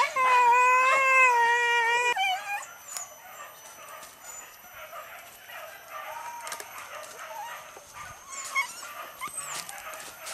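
A hunting dog howls in one long call that wavers slightly and lasts about two seconds. After it come quieter rustling and twig snaps from movement through the forest undergrowth.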